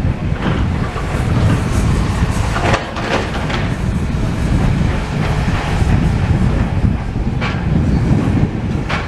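Heavy wind buffeting the microphone over the low running of a demolition machine, with several sharp knocks and clatters scattered through.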